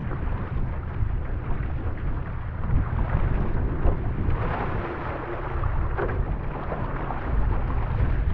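Wind buffeting the microphone with a heavy low rumble, over water splashing and rushing along a one-person outrigger canoe's hull and paddle strokes through choppy water.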